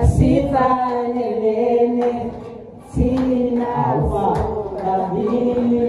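Live singing over amplified music: long, held sung notes, with a few heavy beats.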